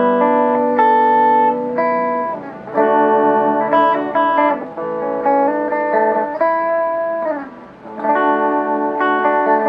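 Electric guitar played clean through a small Fender-style combo amp with its treble switch engaged: ringing chords and held notes that change every second or so, with a downward slide and a short drop in volume about three-quarters of the way through.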